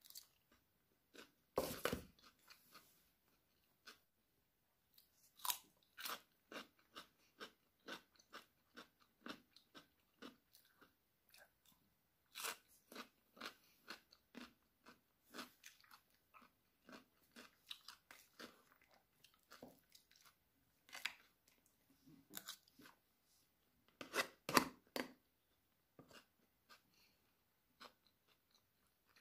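Close-up chewing of a mouthful of chicken laab and rice: soft, irregular wet mouth clicks and crunches. Two louder bursts come about two seconds in and again near the end.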